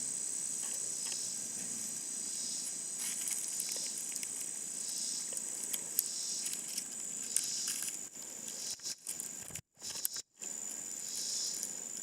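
Insects chirring steadily in a high, even band, with scattered small rustles and clicks close by. The sound cuts out completely twice, briefly, about ten seconds in.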